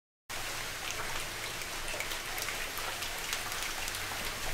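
Steady rain patter: an even hiss of many small drops ticking. It starts abruptly about a quarter second in, out of silence.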